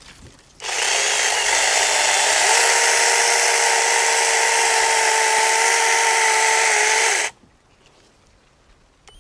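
Compact cordless electric mini chainsaw running under power for about six and a half seconds, its motor whine stepping up in pitch about two seconds in, then cutting off.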